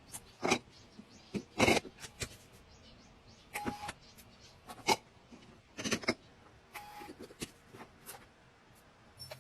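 Irregular clicks, taps and clatters of containers and packaging being handled and set down while restocking, a few with a brief ringing note.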